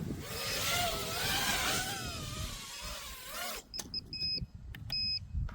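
5-inch FPV quadcopter's motors and propellers whining with wind noise, the pitch wavering up and down as it comes in to land, then cutting off suddenly about three and a half seconds in as the motors stop. Short high electronic beeps follow, repeated several times.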